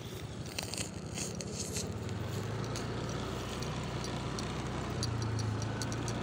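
A vehicle's engine and road noise while driving slowly: a low steady hum that grows a little louder about two seconds in, with light clicks over it at first.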